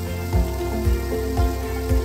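Background music with a steady beat of about two low thumps a second over sustained tones.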